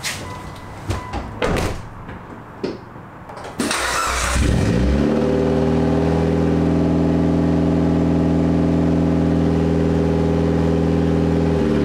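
A few clunks as the driver gets in and the door shuts. Then, about three and a half seconds in, the Mitsubishi Lancer Evolution IX's turbocharged 2.0 L four-cylinder (4G63) is cranked briefly, catches with a short flare, and settles into a steady idle.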